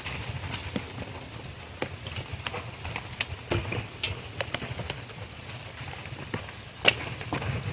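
Campfire of burning fatwood crackling, with irregular sharp pops and snaps, over a steady low rumble of storm rain and wind.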